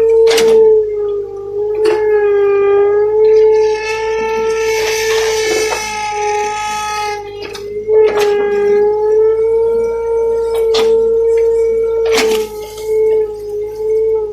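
Komatsu excavator working, with a steady high whine that wavers slightly in pitch. Sharp metallic clanks come now and then, and there is a hissing rush around the middle.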